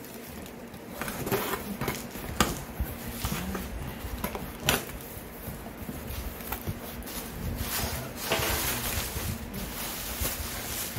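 Cardboard shipping box being torn open by hand, with sharp snaps of tape and card as the flaps are pulled back, followed by bubble wrap rustling and crackling near the end.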